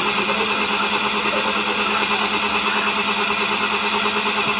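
Electric spice grinder running steadily, a continuous whirring with a constant low hum, freshly cleaned and reassembled and grinding spices.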